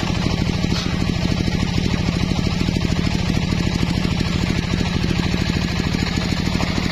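Engine of a homemade circular saw bench running steadily with a fast, even pulsing beat. The blade spins free between rip cuts.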